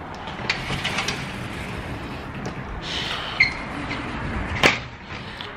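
A sliding door being opened to step outside, with several clicks and knocks; the sharpest, loudest knock comes near the end.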